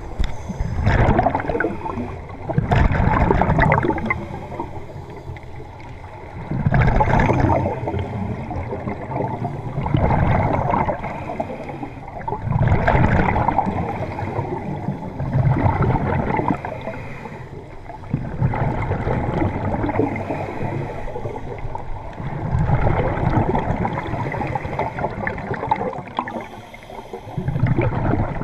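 Scuba divers breathing through their regulators underwater: a burst of gurgling exhaled bubbles every three to four seconds, heard through the camera's underwater housing.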